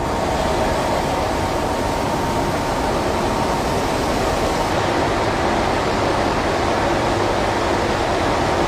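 Shelled corn pouring out of a grain trailer's opened front hopper gate: a loud, steady rushing hiss with a faint hum underneath.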